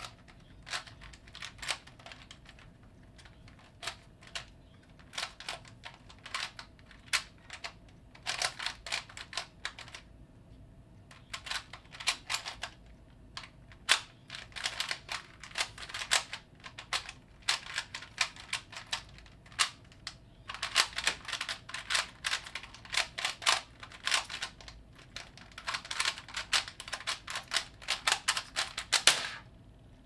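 A 3x3 Rubik's Cube turned one-handed at speed: quick runs of sharp plastic clicks and clacks as its layers turn, broken by short pauses. The clicking stops about a second before the end, when the solve is finished.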